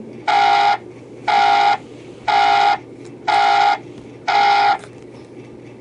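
Cell phone beeping on a table: five electronic beeps, each about half a second long, one a second, then stopping as a hand reaches for the phone.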